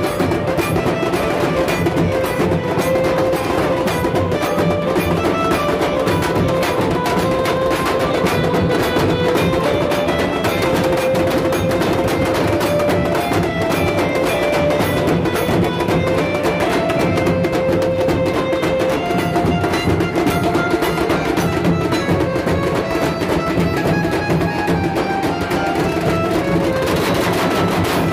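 Mumbai banjo party band playing: a melody on an Indian banjo over large barrel drums beaten with sticks in a steady, driving beat.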